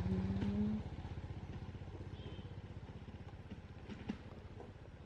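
Small engine, like a motorcycle's, running with a steady low throb that slowly fades. A short steady pitched tone sounds in the first second, and there are a few faint clicks near the end.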